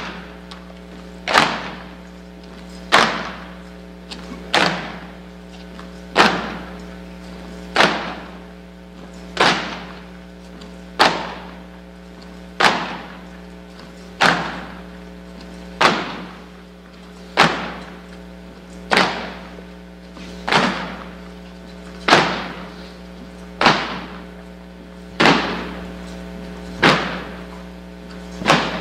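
Slow, steady drumbeat of single strikes, about one every second and a half, each ringing out in a large hall, over a steady low hum.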